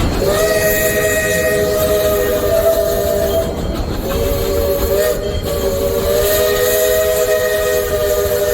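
Steam locomotive's chime whistle sounding a steady three-note chord in long blasts, with a short break about three and a half seconds in before it sounds again.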